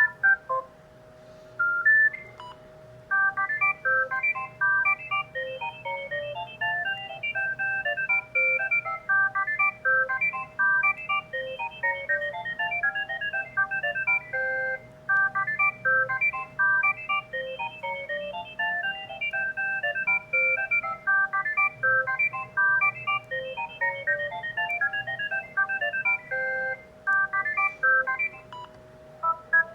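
Panasonic GD75 mobile phone playing an electronic ringtone melody through its small speaker: a quick, repeating run of short beeping notes. The run starts about three seconds in after a few scattered notes, over a steady faint tone.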